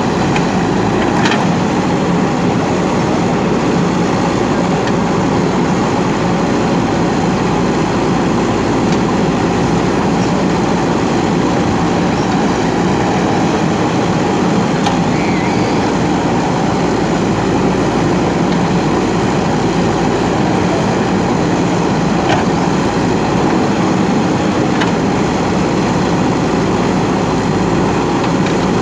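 JCB backhoe loader's diesel engine running steadily under working load, with a few faint clicks or knocks from the machine.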